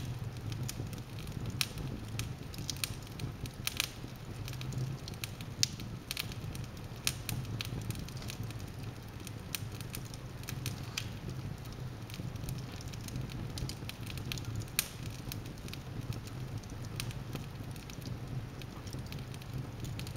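Wood logs burning in a fireplace, crackling with irregular sharp pops over a steady low hum.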